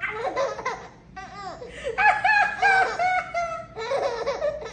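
High-pitched laughter in several bouts, with brief pauses about a second in and near the end.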